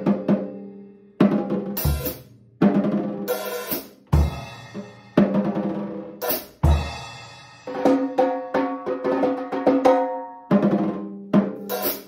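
Yamaha birch drum kit played in short phrases: tom hits that ring with clear pitches, bass drum kicks and cymbal crashes, with a longer run of tom strokes in the middle. The toms (10, 12, 13 and 14 inch) have been tuned with a phone drum-tuning app.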